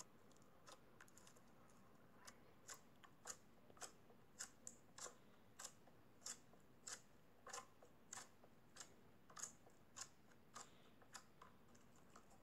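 Glossy slime being poked and pressed with fingertips, giving faint crisp clicks and pops, about two a second.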